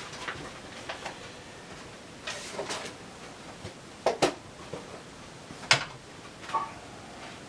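Altar vessels being handled and set down while the altar is prepared for the offertory: a few light knocks and clinks, a close pair about four seconds in and a sharper single one near six seconds, with softer handling sounds between.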